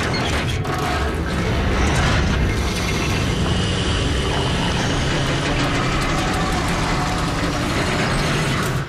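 Sound effect of a metal filing cabinet crumpling and compressing into a ball: a steady, dense mechanical rumbling noise that stops suddenly near the end.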